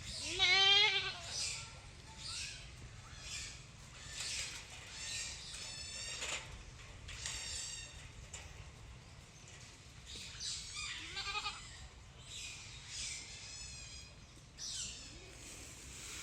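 An animal bleating with a wavering pitch, loudly about half a second in and more briefly again about eleven seconds in, over a series of short, high, hissy sounds.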